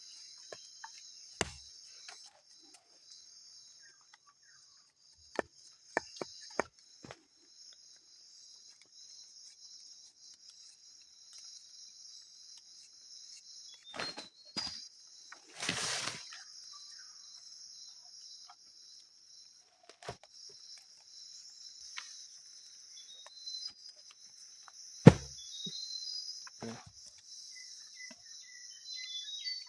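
Night insect chorus, a steady high-pitched drone of crickets, broken by scattered short clicks and knocks, the loudest about three-quarters of the way through.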